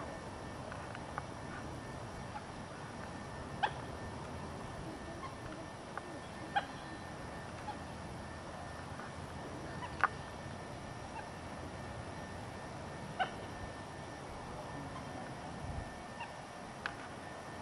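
A wetland bird giving short, sharp calls, one every three seconds or so, over a steady background hiss.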